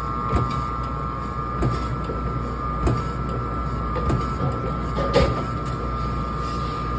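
Electric deli meat slicer running with a steady hum and whine while ham is sliced, with a short knock about every 1.2 seconds as the carriage is pushed through each stroke.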